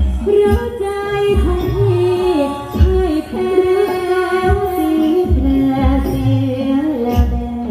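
A female singer holding long, gliding notes into a microphone over live band accompaniment, with a bass drum thumping about once a second, amplified through the stage sound system.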